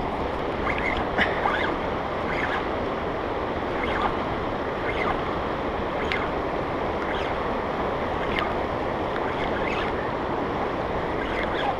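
River rapids rushing steadily, with a few faint, irregularly spaced clicks.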